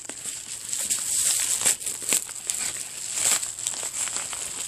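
Plastic mail packaging being torn open and crinkled by hand: a steady run of irregular crackling and crumpling.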